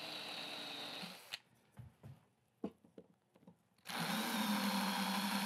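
Cordless drill drilling a missing hole into a part of an aluminum blaster kit. The motor runs steadily, stops about a second in, a few light clicks and taps follow, and it starts again, louder, near four seconds in.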